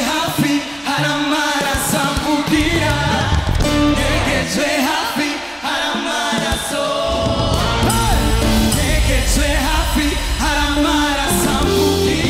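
Live gospel band with several singers on microphones over keyboard, electric guitar and drums. The bass and low drums thin out for a few seconds, then the full band comes back in about seven seconds in.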